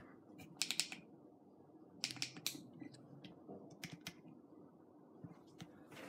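Faint scattered clicks and taps in small clusters from handling a phone gimbal and pressing its buttons, over a low steady hum.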